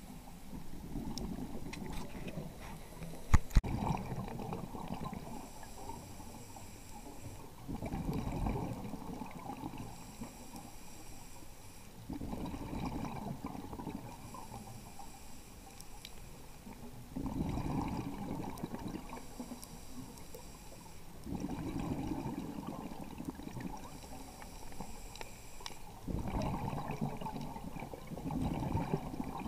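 Diver's scuba regulator breathing underwater: a hissing inhalation alternating with a bubbling exhalation, about every four to five seconds. Two sharp clicks about three and a half seconds in.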